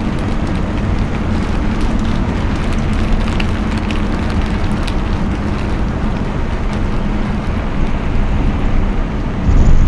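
Car driving on a rain-wet road: steady tyre and road rumble with a low drone, scattered faint ticks, and a brief louder rumble near the end.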